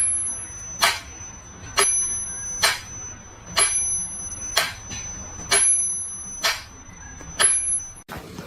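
A small bell struck nine times, about once a second, each sharp strike ringing on in a high, clear tone.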